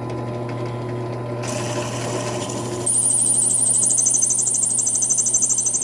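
Bench drill press running, its bit boring into a brass rod. About three seconds in, a loud, high-pitched, pulsing squeal joins the steady motor hum.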